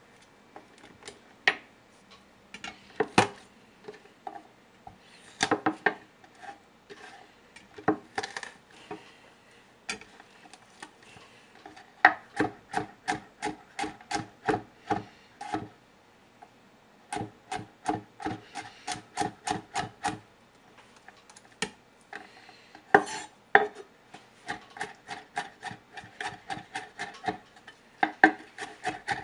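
Chef's knife chopping garlic on a wooden cutting board. A few scattered, heavier knocks come first, then runs of quick, even chops at about four a second.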